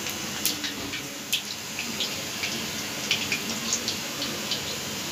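Onion pakoras (gram-flour fritters) deep-frying in hot oil in a wok. The oil sizzles steadily, with frequent sharp crackles and pops.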